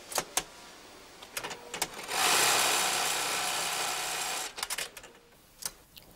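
Industrial sewing machine with a clamp plate stitching through fabric. A few sharp clicks come first, then about two seconds of fast running starting around two seconds in, then more clicks as it stops.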